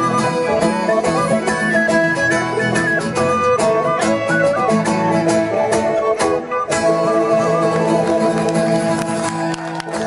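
Folk band playing an instrumental passage: strummed acoustic guitar under a lively melody line. The tune closes in the last few seconds on long held notes.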